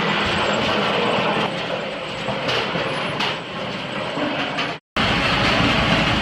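A firewood splitting machine runs with a steady mechanical clatter, and a few sharp knocks come as wood is driven through and split. About five seconds in the sound drops out for an instant, and a steady machine noise with a deeper rumble follows.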